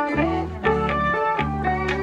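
Background music: a guitar-led instrumental with plucked notes over a bass line that changes about every half second.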